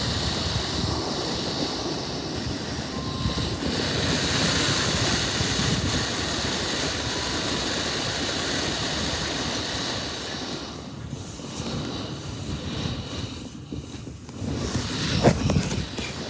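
Electric fan running with a steady whooshing blow and a rumble of air against the microphone, easing off briefly twice. A short thump comes near the end.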